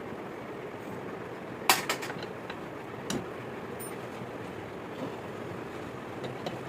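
A few sharp knocks or clinks, the loudest about one and a half seconds in, followed by a quick cluster of lighter ones and a single knock about three seconds in, over a steady background noise.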